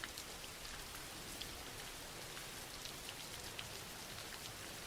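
Soft, steady rain falling, an even hiss with scattered small drop ticks.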